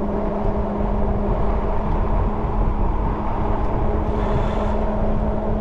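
Ariel Rider Grizzly electric bike cruising at about 18 mph: a steady, even-pitched hum from the drivetrain and tyres on asphalt, over a low wind rumble on the microphone.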